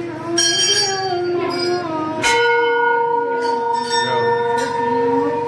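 Temple bells rung for an aarti: several strikes, the loudest about two seconds in, ringing on with a long steady tone. Voices singing the aarti can be heard underneath.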